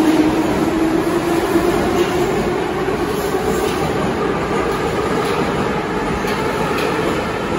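Metro train pulling out along the platform, its traction motors whining in a tone that rises steadily in pitch as it gathers speed, over the steady rumble of wheels on rails.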